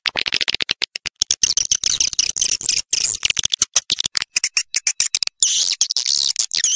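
Swiftlets chattering in a rapid, unbroken stream of high-pitched chirps and clicks. It is a recorded swiftlet lure call, played in swiftlet houses to call swiftlets in and get them to roost.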